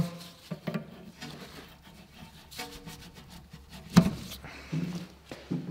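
Pliers working the metal retaining clip that holds the brake hose at a rear brake caliper: a few light clicks, then one sharp metallic click about four seconds in.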